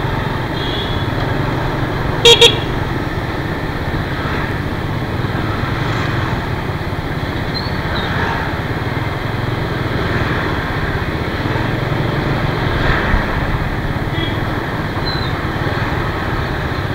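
Steady motor scooter engine and street traffic noise while riding, with a vehicle horn giving two short, loud beeps about two seconds in.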